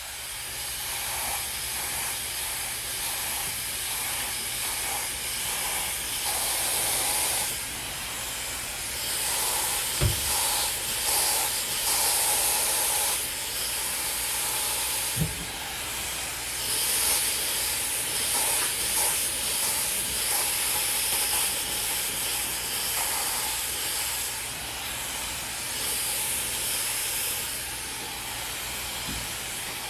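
Hand-held hair dryer blowing steadily on medium speed and medium heat, its airflow swelling and easing as it is worked over a round brush through the hair. A couple of small knocks sound about a third and halfway through.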